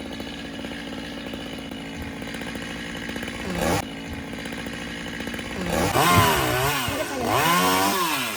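Chainsaw engine running at a steady idle, then revved up and back down twice near the end.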